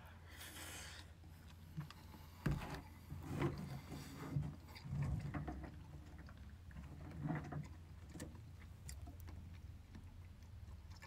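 Quiet eating sounds: chewing, with soft clicks of chopsticks against a takeout bowl and a few light knocks, the sharpest about two and a half seconds in.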